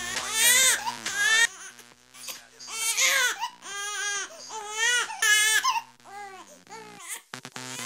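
A person's voice in long, high-pitched, wavering cries with pauses between them, over background music.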